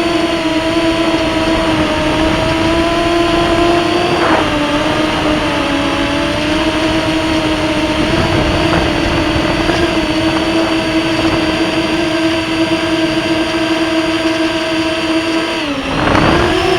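FPV drone's electric motors and propellers running with a steady, loud buzzing whine. The pitch sags slightly about four seconds in, then dips sharply and climbs back near the end.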